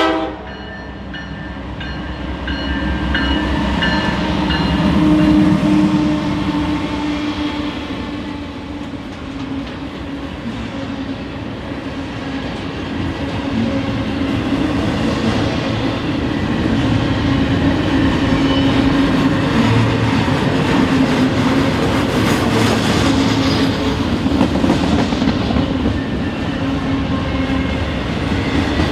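A train passing close by. Its horn chord cuts off right at the start. The locomotive's engine and rolling noise build to a peak about five seconds in, then the cars roll past with steady wheel noise and clickety-clack over the rail joints.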